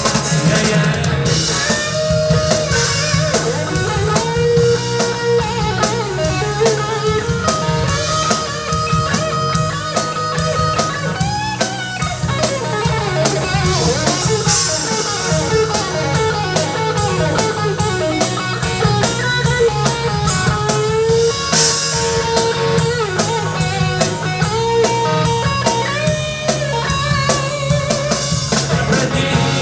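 Live rock band playing an instrumental break: an electric guitar plays a lead melody with bent notes over drum kit and bass guitar.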